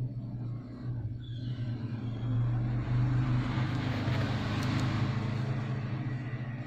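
A motor vehicle going by, its noise swelling to loudest about three to five seconds in and then fading, over a steady low hum.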